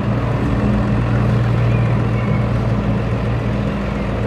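Deutz-Fahr tractor's diesel engine running steadily at low revs as the tractor pulls slowly forward.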